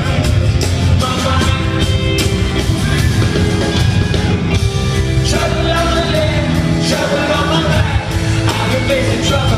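Rock band playing live in an arena with a lead singer, electric guitars, bass and drums, loud and steady, heard from the audience.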